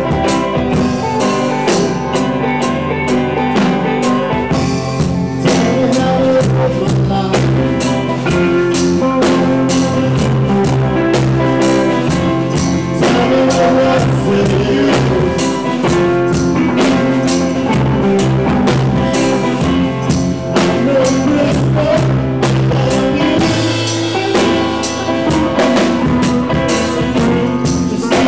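Live band playing a song on acoustic guitar, second guitar, bass and drum kit, with a steady drum beat.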